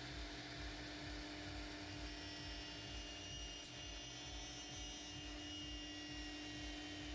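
Steady electrical hum, with a faint high whine joining about two seconds in.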